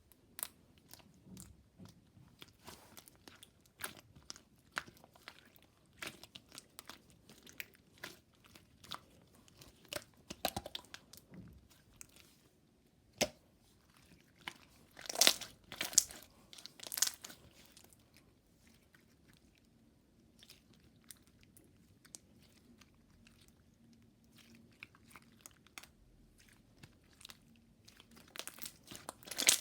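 Water slime being handled: irregular sticky clicks, pops and crackles as it is pressed, stretched and folded. The sounds come in clusters and are loudest about halfway through.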